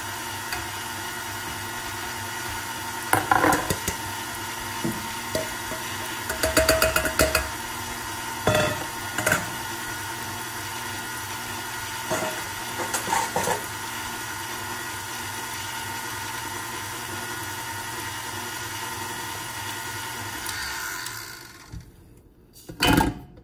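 Stand mixer running steadily, its wire whisk beating flour into cake batter in a stainless steel bowl, with a few brief clatters along the way. The motor winds down and stops about 21 seconds in, followed by a couple of knocks near the end.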